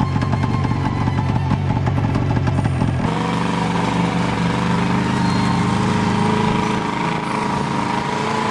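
A snowmobile engine running steadily at an even pitch while travelling over snow, heard from on board. It begins abruptly about three seconds in. Before that there is a different, dense rumbling sound that cuts off sharply.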